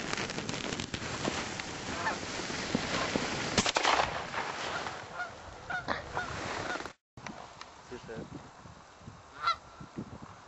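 Canada geese honking in scattered calls over a steady rushing noise. The rushing stops abruptly about seven seconds in, and a few quieter honks follow.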